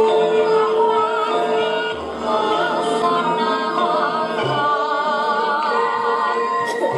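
Javanese gamelan music accompanying a Gambyong dance: a female singer's wavering, ornamented line over steady ringing metallic tones, with a low beat every two seconds or so.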